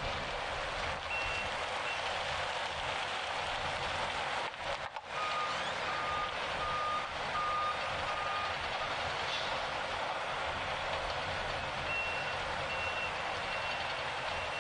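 Reversing alarm of a site vehicle sounding a run of short, evenly repeated beeps over steady work-site noise. A lower-pitched beep runs from about five to eight and a half seconds in, and a higher-pitched beep starts about twelve seconds in.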